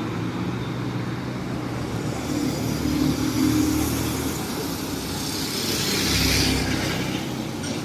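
Road traffic: a vehicle engine running with steady road noise. Another vehicle passes louder about six seconds in.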